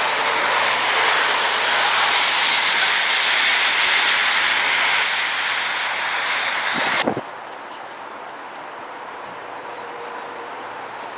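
A loud, steady hiss with no distinct events. It cuts off abruptly about seven seconds in, leaving a much quieter steady hiss.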